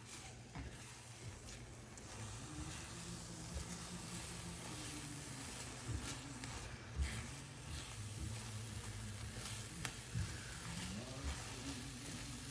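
Food sizzling in a hot pan: a steady frying hiss with scattered small pops.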